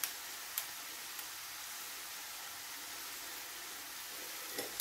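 Minced beef frying in a pan, a soft steady sizzle, with a few light clicks of a metal strainer and fork in the first second as rice vermicelli is tipped in.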